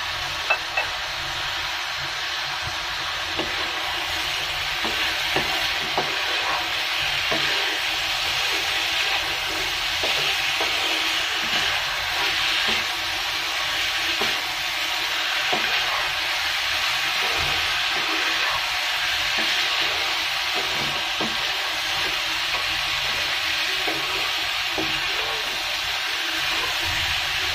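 Soaked mung dal, potatoes and a rohu fish head sizzling in hot oil in a wok, stirred and tossed with a wooden spatula that scrapes and knocks against the pan again and again. This is the dal being fried dry in the spices before water goes in.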